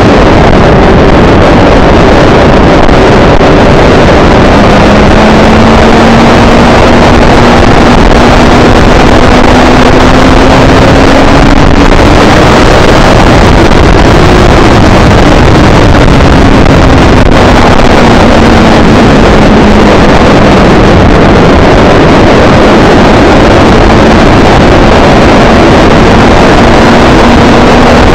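Motorcycle engine at racing speed heard from an onboard camera, buried in heavy wind noise on the microphone and very loud throughout. The engine note climbs slowly to a peak about halfway through, drops away as the bike slows, and climbs again near the end.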